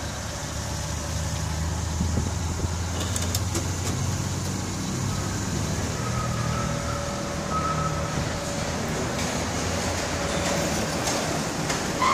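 Car engine idling with a steady low hum as the car rolls slowly up to the tunnel entrance. About halfway through, faint whining tones and a few light clicks from the car wash machinery come in over it.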